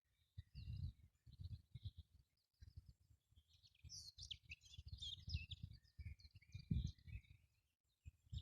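Birds chirping faintly, many short overlapping calls that are busiest in the middle, over irregular low rumbling thumps.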